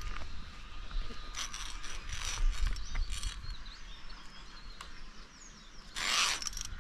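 Metal safety carabiners and pulley trolley of a high-ropes course harness scraping and clicking along the steel safety cable, in several short bursts, the loudest near the end.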